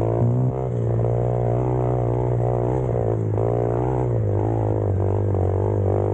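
Motorcycle engine running at a steady speed, its pitch dropping a little about four seconds in.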